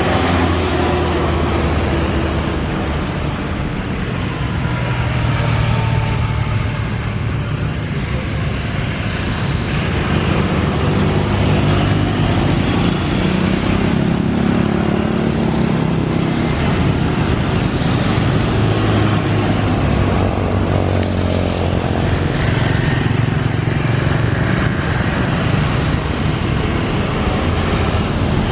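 Continuous motor-vehicle traffic noise, with engine hums that rise and fall in pitch as vehicles pass.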